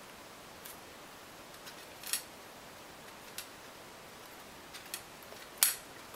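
A few short, sharp clicks and faint rustling as floral tape is stretched and wound around a thin wire stem by hand; the loudest click comes near the end.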